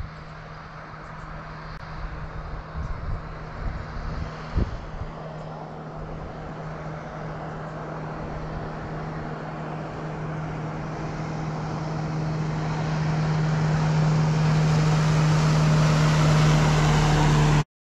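Motorboat engine running fast as the boat approaches at planing speed, a steady drone with rising water and wind hiss that grows louder throughout, then cuts off abruptly near the end.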